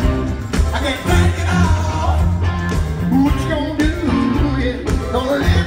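Live rock band playing, with a male lead vocal over a steady bass line and drum beat.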